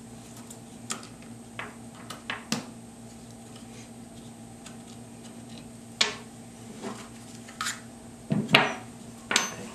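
Scattered clicks and knocks of rifle-stock parts being handled and set down on a hard surface, a dozen or so irregular strikes with the loudest near the end, over a steady low hum.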